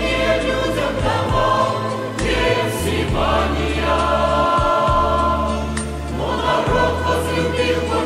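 Church choir singing a hymn in held chords over sustained low bass notes.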